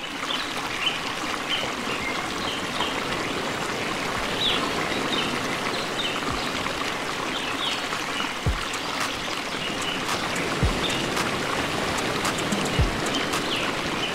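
Intro of a background music track: a steady rushing, water-like wash with short high chirps over it. About eight seconds in, a deep kick drum comes in and hits about once every two seconds.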